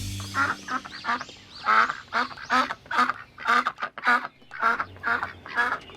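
Duck quacking over and over, a steady run of short quacks, about two to three a second.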